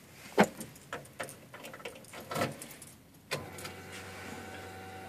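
Keys jangling and clicking in the car's ignition, then about three seconds in a steady electric hum starts as the ignition is switched on and runs for about two seconds, before the engine is cranked.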